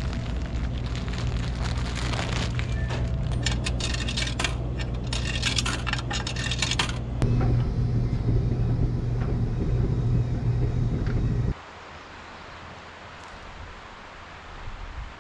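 Coin-laundry front-loading washing machine running with a steady low hum, with a busy patter of clicks and rattles over the first several seconds. About seven seconds in it gets louder as the drum tumbles the clothes, then cuts off suddenly to quiet outdoor background.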